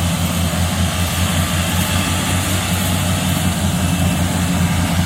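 Rice combine harvester's engine running steadily, with an even low pulsing.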